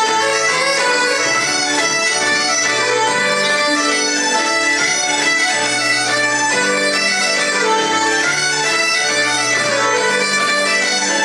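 Bagpipes playing a tune live with a fiddle and keyboard, the ensemble sounding continuously throughout.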